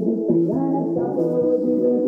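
A Portuguese-language song played loud through a car-audio speaker wall of horn-loaded mid drivers and tweeters, with sustained melodic notes over a steady beat.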